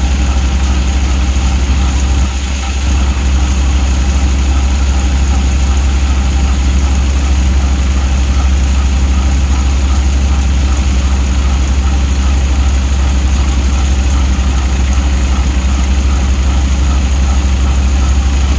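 Tractor engine running steadily under load, driving a belt-driven grain thresher whose drum and fans whir with it; a loud, even drone that dips briefly about two seconds in.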